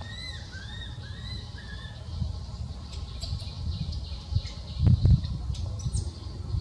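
A quick series of about five short, high, arched chirping calls, then a steady low rumble with a couple of louder bumps about five seconds in.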